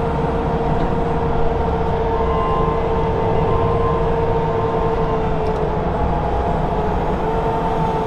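Bobcat compact track loader (tracked skid steer) running, heard from inside its cab: a steady low engine drone with an even, high whine over it.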